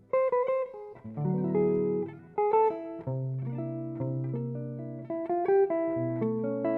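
Instrumental guitar music: single plucked notes and chords, each ringing and fading, over low held bass notes.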